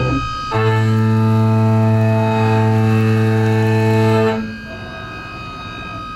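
Kennametal ceramic shell mill cutting Inconel 718 on a DN Solutions DVF 5000 five-axis mill: a loud, steady drone with many overtones, which ceramics make much louder than carbide. It starts about half a second in and falls away about four seconds in as the cutter leaves the material, leaving a quieter hum.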